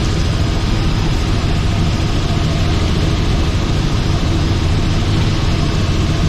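Robinson R44 helicopter in flight, heard from inside the cabin: the steady, loud drone of its piston engine and main rotor.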